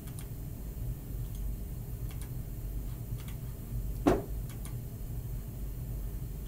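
A steady low hum with a few faint clicks scattered through it, and one louder, short thump about four seconds in.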